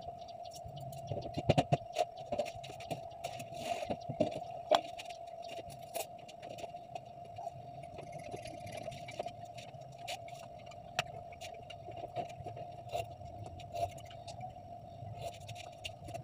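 Soft clicks and taps of softened pili fruits being peeled by hand, their pits and skins set down on plastic plates, most frequent in the first few seconds, over a steady hum.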